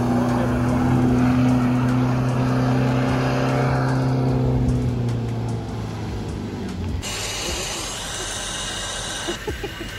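A motor running at a steady, unchanging pitch; about seven seconds in it cuts off abruptly and a quieter hiss follows.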